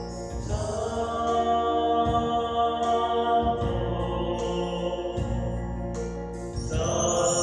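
Church music at a Mass: held chords with singing voices, the harmony changing every few seconds.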